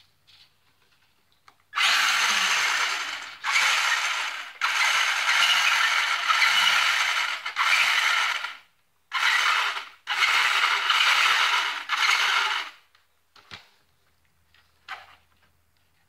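Electric motor and gears of a remote-control toy car running in five bursts, a noisy whir without a clear pitch, stopping and starting over about eleven seconds. It is the weird noise the car is making.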